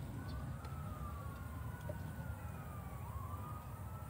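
Emergency-vehicle siren wailing, its pitch slowly rising and falling in long sweeps, over a steady low rumble.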